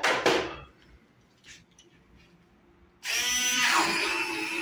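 A couple of knocks, then an electric stick blender is switched on about three seconds in and runs steadily, grinding peanut paste with honey for amlou in a plastic bucket.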